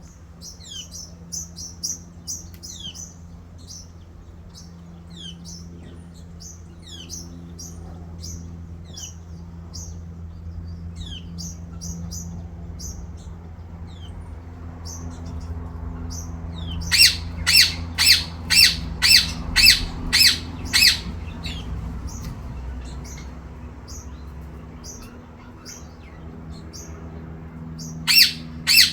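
Small birds chirping with quick high notes, then a bird squawking loudly in a run of about eight harsh calls, roughly two a second, a little past halfway, and two more near the end.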